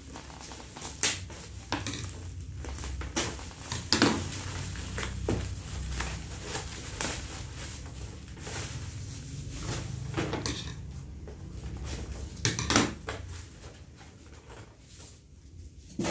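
Plastic parcel packaging being unwrapped by hand: a black plastic mailer and bubble wrap crinkling and rustling, with cardboard wrapping torn and pulled away. There are irregular sharp crackles and knocks every second or so, growing quieter near the end.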